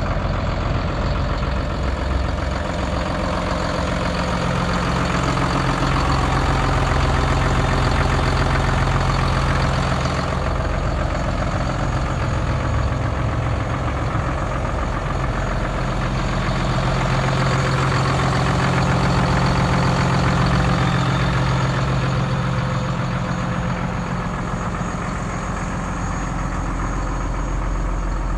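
Hino 268 medium-duty box truck's inline-six diesel engine idling steadily.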